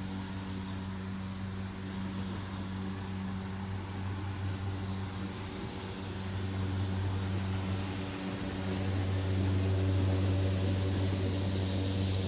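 Lawn mower engine running steadily with a low, even hum, growing louder about two-thirds of the way through.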